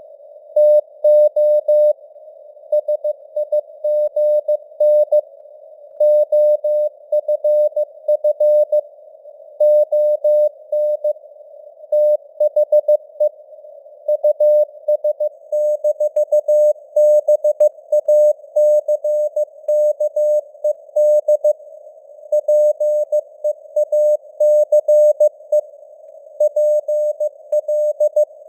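Morse code at 15 words per minute: a single steady beep keyed on and off in dots and dashes, spelling out news headlines. It sits over a narrow band of simulated radio receiver hiss.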